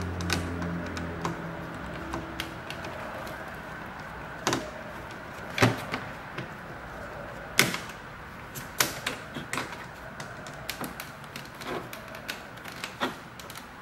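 Plastic push clips on a Lexus IS250's front radiator-support cover being pried out with a flat-blade tool: a series of sharp, irregular clicks and snaps, roughly a second apart. A low hum fades out in the first second or so.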